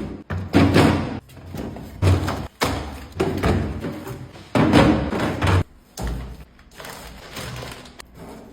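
Groceries being put away: a string of thumps and knocks as items and packets are set down, with rustling between them.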